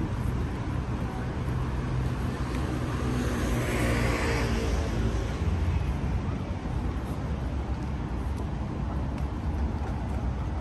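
Road traffic on a city street: a steady low rumble, with one vehicle passing close by about three to five seconds in, rising and then falling away.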